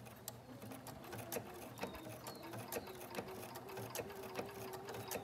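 Bernina sewing machine sewing a blanket stitch around a fabric appliqué, with irregular needle ticks and a faint steady motor hum that comes in about a second in.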